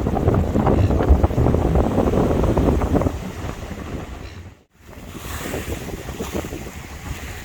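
Wind buffeting the microphone aboard a moving harbour ferry, with the rush of water underneath. It is heaviest for the first three seconds, cuts out for an instant a little past the middle, then comes back quieter.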